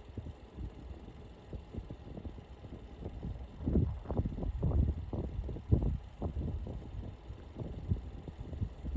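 Vehicle noise: a low rumble with irregular thumps and swells, louder for a few seconds in the middle.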